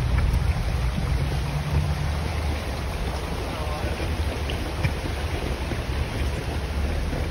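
Wind buffeting a handheld phone's microphone as a steady low rumble while the person filming walks, with a few faint footsteps on wooden bridge planks.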